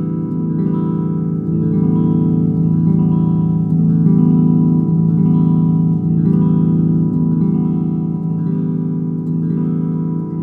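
Electric guitar strummed through an Ampeg V4 all-tube amp head, the same chord struck over and over while the amp's bass control is swept from neutral up to full and then down to minimum. The low end swells through the middle and thins out near the end.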